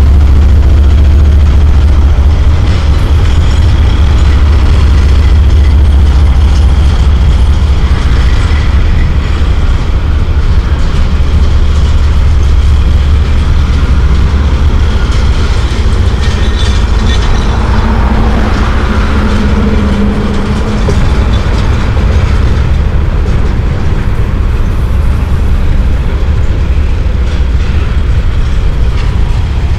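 CSX double-stack container freight train rolling across the overpass: a loud, continuous low rumble with wheel clatter, heaviest in the first several seconds. A brief hum swells and fades around the middle, fitting a road vehicle passing beneath the bridge.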